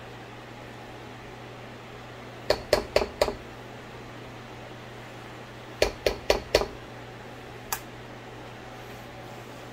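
A kitchen utensil tapped sharply against a dish to knock sour cream off it: a quick run of four taps, then five, then one more. Underneath is the steady low hum of a kitchen fan.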